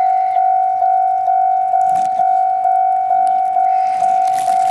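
Electronic warning bell, a railway level-crossing alarm, ringing one high tone struck about twice a second. Near the end a burst of steam hissing from the C58 steam locomotive rises over it.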